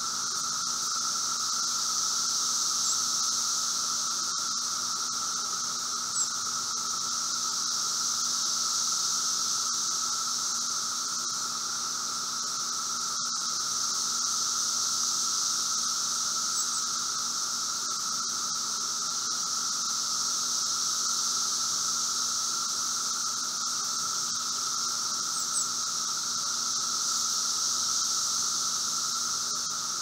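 A dense chorus of Brood V periodical cicadas (Magicicada septendecim): a steady drone that swells and eases slowly every several seconds. Two brief clicks stand out from it.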